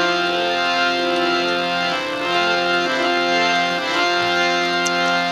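Harmonium playing sustained held chords, the notes shifting about two and four seconds in.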